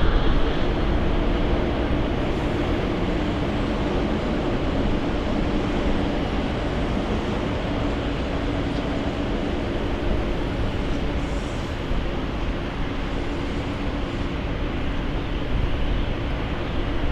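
Jet airliner engines running: a steady rush of noise with a faint low hum, easing slightly after the first seconds.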